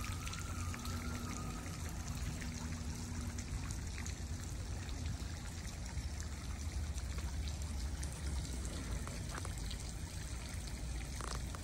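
Small garden fountains splashing and trickling steadily into a shallow ornamental pond.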